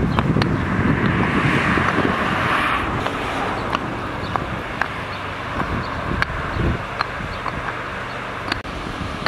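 Wind buffeting the microphone with a low, irregular rumble, a hiss for about two seconds near the start, and scattered light clicks.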